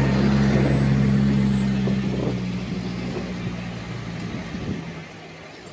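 Tractor engine running with a steady low hum, loud at first and fading away over about five seconds.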